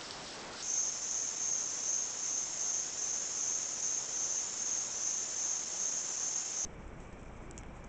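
A high-pitched insect trill, continuous with a slight pulsing, starting about half a second in and cutting off suddenly near the end, leaving a quieter background with a low rumble.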